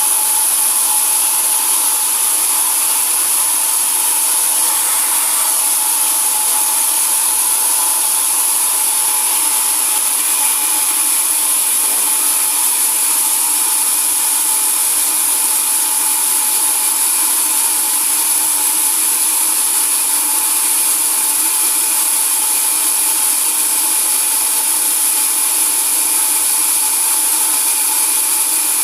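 Sawmill saw running steadily with a continuous whine over a high hiss, unbroken throughout.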